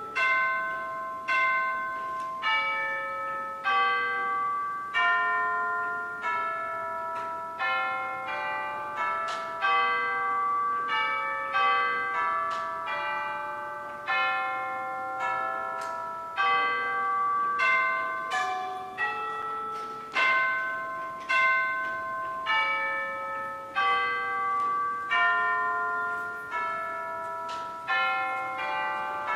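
Bells playing a tune, one struck note after another, each ringing and slowly fading as the next begins.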